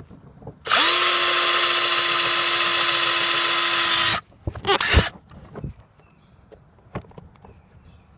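Cordless drill spinning up fast to a steady whine as the bit goes through a stiff leather saddlebag into a wood backing block. It runs for about three and a half seconds and stops suddenly, followed by a few sharp knocks.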